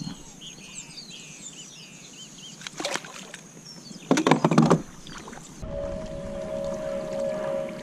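Faint chirping, then a splash and a loud brief burst of noise about four seconds in as a small snook is let go from a kayak. About two-thirds of the way in, a kayak's electric trolling motor (MS Phantom 44 lb) starts running with a steady whine.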